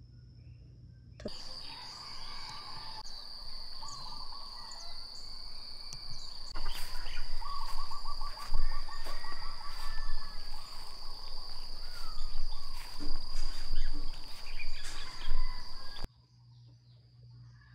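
Outdoor morning ambience: birds calling in short chirps and a trill, over a steady high-pitched insect drone. Irregular rustling knocks grow louder from about six seconds in. It all cuts off near the end to quiet room tone.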